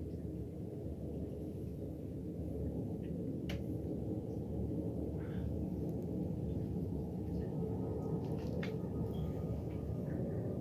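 Aircraft passing overhead: a low engine rumble that slowly grows louder, with a steady high whine joining in about seven seconds in.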